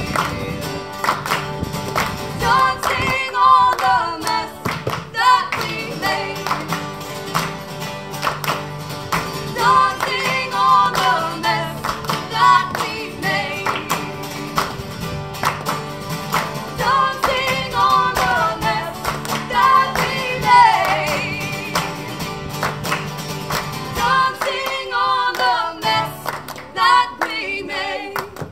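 Live band music: strummed acoustic guitars with a held low note under a wavering melody line that may be wordless vocals. The low note drops out a few seconds before the end, and the music stops at the very end.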